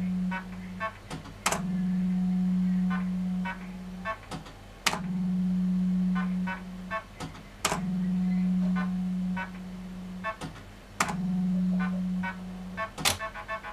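Reels of a 1981 MDM Super 2p Eachway Shuffle fruit machine spinning game after game. Each spin opens with a sharp clack and a steady hum for about two seconds, then a run of clicks as the reels stop one by one; this happens four times, with one spin already running at the start. Near the end, a clack is followed by a beeping electronic tune.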